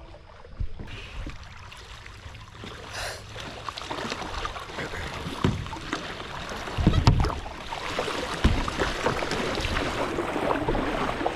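River water rushing around a kayak, growing louder from about the middle as the boat runs through a small riffle, with a few dull knocks.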